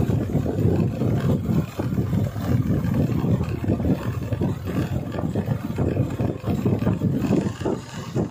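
Uneven low rumble of wind buffeting the microphone over the noise of a vehicle moving along the road.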